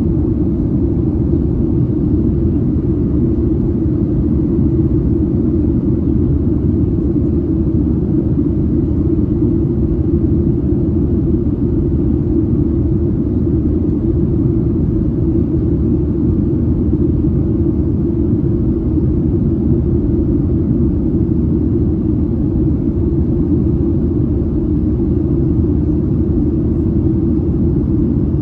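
Steady low rumble of a Boeing 737-700 airliner in flight, heard from inside the cabin: engine and airflow noise, unchanging throughout.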